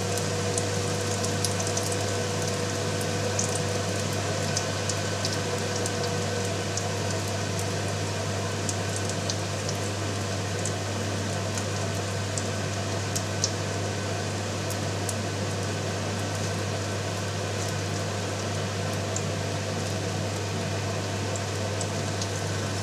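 Hot oil sizzling and bubbling steadily around yeast-dough-wrapped sausages deep-frying in a frying pan, with small sharp crackles scattered throughout. A steady low hum runs beneath.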